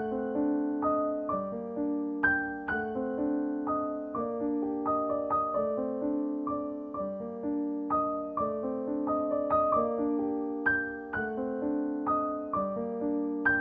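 Background piano music: a steady run of struck notes, each fading away, playing a repeating melody.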